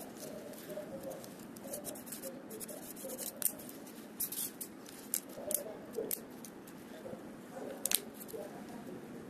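Wooden popsicle sticks handled on a table: scattered sharp clicks and light scrapes, the loudest click near the end.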